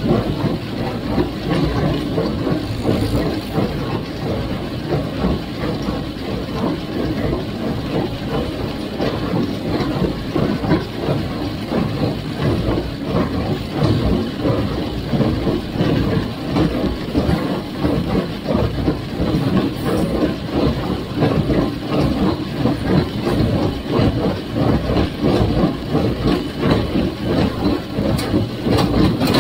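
Farmall 350 gas tractor engine running steadily while driving a John Deere 348 square baler, with continuous dense mechanical clatter.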